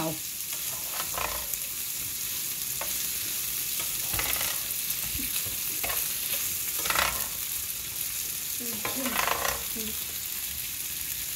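Diced boiled potatoes sizzling steadily in a ridged nonstick pan as a spatula stirs them, with a few louder scraping strokes of the spatula against the pan.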